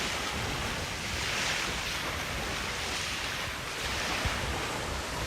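Waves washing in, an even rush that swells and eases, with wind buffeting the microphone.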